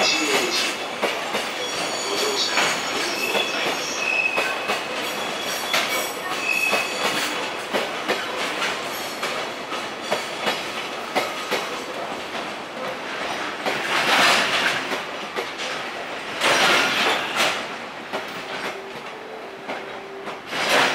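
Container freight wagons rolling slowly past, their wheels clattering and knocking over rail joints and points, with a few short high-pitched wheel squeals. The clatter gets louder in bursts about two-thirds of the way through as wagons cross the points.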